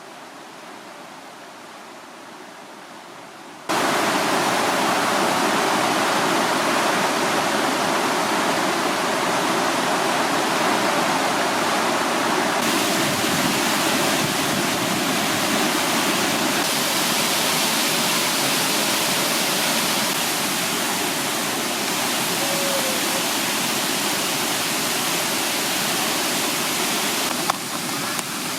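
Steady rushing of a mountain stream's waterfall pouring over rock into a pool. It is softer at first, then jumps abruptly much louder a little under four seconds in.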